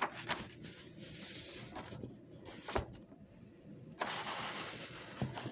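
Faint rustling and handling noise from a paper comic book being moved about, with a single sharp click about three seconds in.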